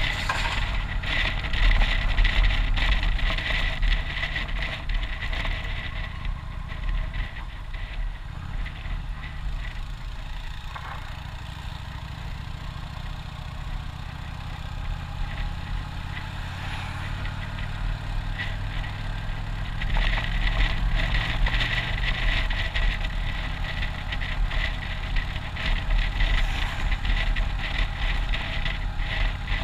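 Motorcycle engine running while riding, heard from the rider's seat as a low hum under a rush of wind. It eases off in the middle and grows louder again about two-thirds of the way through.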